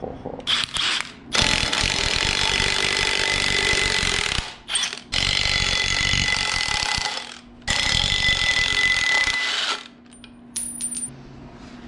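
Cordless Milwaukee M18 Fuel impact wrench hammering as it undoes the bolts holding the drive coupler to the flywheel of a Chevy 350 marine engine. There are two short blips about half a second in, then three long runs of two to three seconds each.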